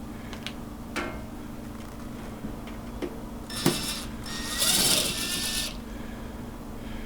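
Clicks and knocks of parts being handled as an LED grow light is taken apart, over a steady low hum. About three and a half seconds in comes a short rasping burst, then a louder one lasting about a second.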